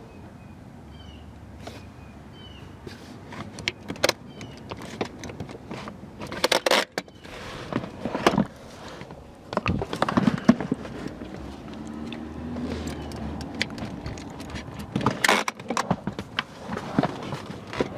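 Irregular clicks, knocks and rustling of plastic car seats and their bases being unlatched and handled in a car's back seat, with a cluster of louder knocks about halfway through and again near the end.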